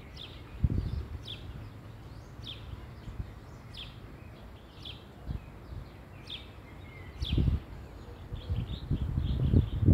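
A bird calling outdoors with short, high, falling chirps about once a second. Low rumbles come and go underneath and are loudest near the end.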